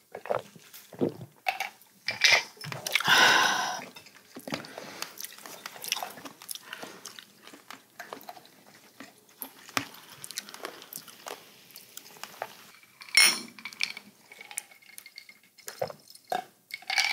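Close-up eating and drinking sounds: chewing and crunching on roast chicken, swallows of beer, and glasses and cutlery clinking. A louder rush of noise comes about three seconds in, and a sharp clink about thirteen seconds in.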